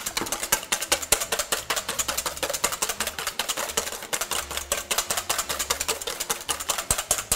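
Eggs being beaten with a fork in a stainless steel bowl: rapid, steady clicking of the metal fork against the bowl, several strikes a second.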